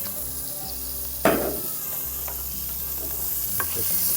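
Chopped onion and garlic sizzling in olive oil in a pot while being stirred, with a sharp utensil clack against the pot about a second in and a few lighter knocks after.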